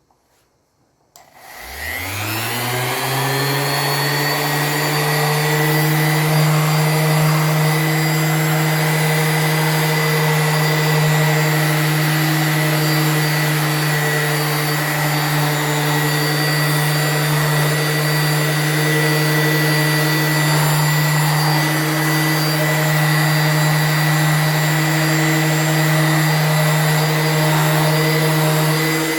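Electric polishing machine switching on about a second in, its motor spinning up with a rising whine, then running steadily at full speed while it buffs the clear-coated parts.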